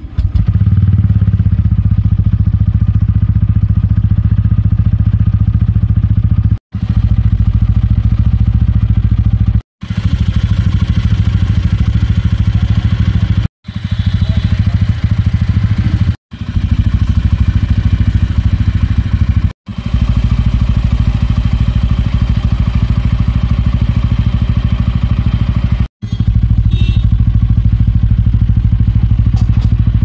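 TVS Ronin 225's single-cylinder engine starting up at the very beginning, then idling steadily, heard close to the exhaust outlet. The steady idle is broken by several brief silent gaps.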